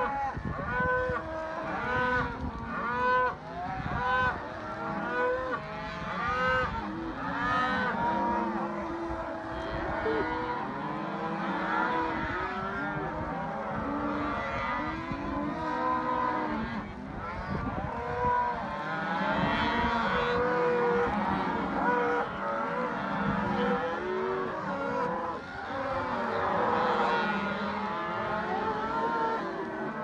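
A large herd of Simmental/Black Angus cross beef cattle bawling and mooing on the move, many calls overlapping one another with no break, over a steady low rumble.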